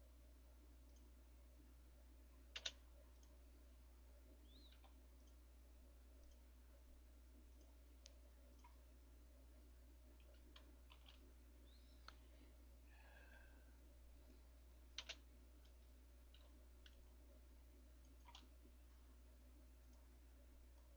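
Sparse computer mouse clicks over a low steady hum, near silence otherwise: a quick double click about two and a half seconds in, another near fifteen seconds, and a few lighter single clicks between.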